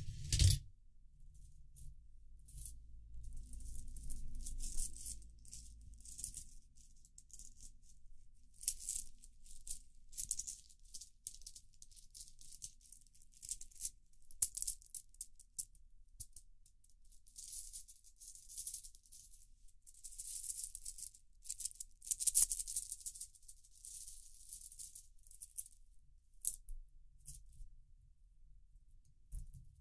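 Coins rattling and clinking through a 3D-printed plastic coin sorter in irregular jingling bursts with short pauses between them. The loudest clacks come just after the start and about 22 seconds in.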